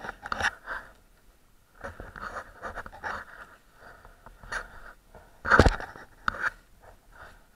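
A rider breathing hard and rustling gear close to a helmet-mounted microphone while handling a fallen dirt bike, its engine off, with a sharp knock about five and a half seconds in and a lighter one just after.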